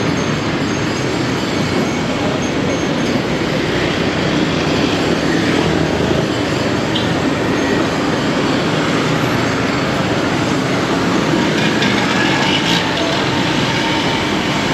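Steady, loud traffic noise of a busy city street, with motor vehicles running continuously and no single event standing out.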